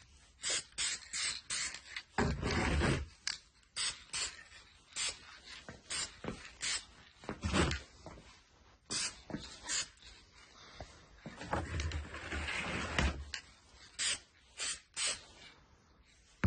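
Aerosol spray paint can spraying in many short bursts of hiss, with two longer sprays about two seconds in and about twelve seconds in.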